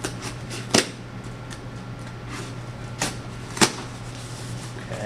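Cardboard box and brown packing paper being handled: soft rustling with a few sharp knocks, the loudest about three and a half seconds in.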